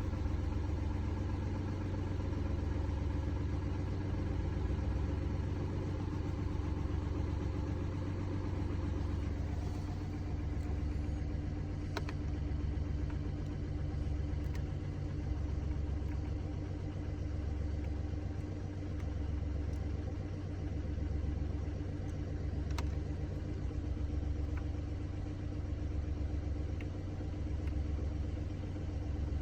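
Mini Cooper D three-cylinder diesel engine idling with a low rumble that swells and fades every second or two. The uploader puts this juddering down to a worn, broken dual mass flywheel.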